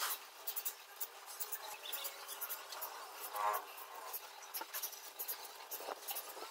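Aluminium foil crinkling, with many light clicks and rustles, as hands press a self-adhesive LED strip onto a foil-covered cardboard ring. A short squeak comes about three and a half seconds in.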